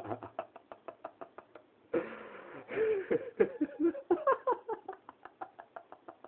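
Laughter: a long run of quick, breathy pulses, with a louder voiced stretch of ha-ha syllables in the middle, trailing off near the end.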